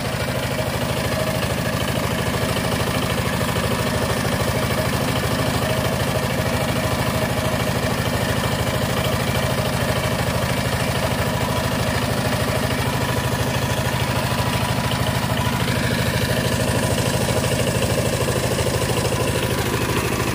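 Two-wheel power tiller's single-cylinder diesel engine running steadily with an even, rapid chug, as the tiller is driven along.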